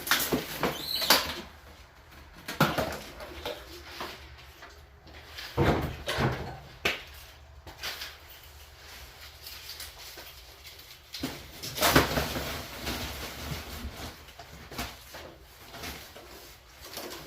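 Irregular knocks, scrapes and rustling of a lathe's shipping packaging being handled and taken apart by hand. Louder clatters come near the start and about 6 and 12 seconds in.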